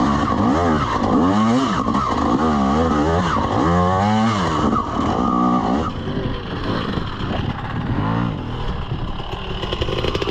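Two-stroke dirt bike engine, a TM EN300 TPI, revving up and dropping back again and again, about once a second, for the first six seconds. It then runs quieter at lower revs, with one more short rev-up about eight seconds in.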